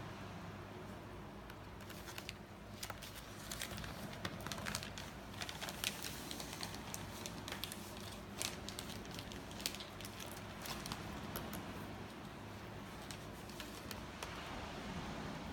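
Faint, irregular small clicks and scratches of a small screwdriver turning out the tiny screws that hold a laptop display panel in its lid, with light handling of the plastic parts. The clicks are thickest in the first two thirds and thin out near the end.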